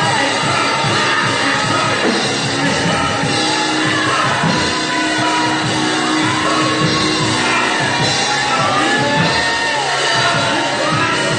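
Live gospel praise music in a church: amplified singing over instruments with congregation voices, steady throughout and echoing in the large sanctuary.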